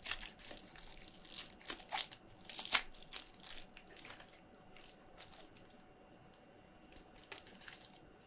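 Bubble-wrap packaging crinkling and crackling as it is pulled off a stack of aluminium PCBs by hand. The crackles come in irregular flurries, busiest in the first three seconds, then sparser.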